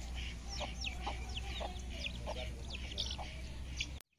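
Aseel chickens with chicks, many short falling peeps coming quickly over one another, with a few lower calls among them; the sound cuts off suddenly near the end.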